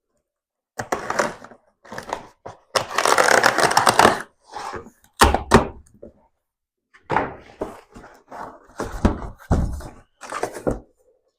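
Exhaust parts and their packaging being handled during unboxing: irregular rustling and scraping, with a dull thump about five seconds in and a few lighter knocks.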